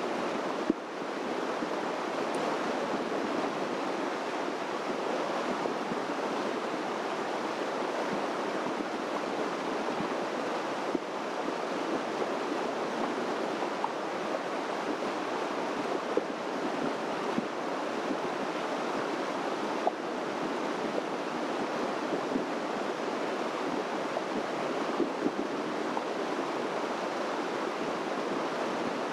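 Steady rushing of running water, with a few faint clicks.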